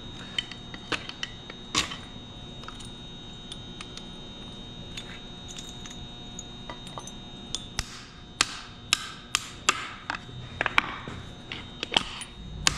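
Sharp metallic clinks and taps as steel valve parts, valve guides and tools are handled and set down on a cast-iron Model A Ford engine block. The clinks come singly at first, then in a quick cluster of ringing knocks over the last few seconds.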